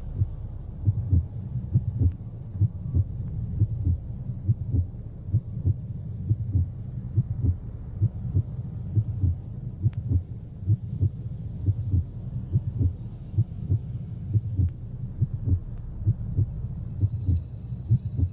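Heartbeat sound effect: steady, low, paired thumps, about one beat a second.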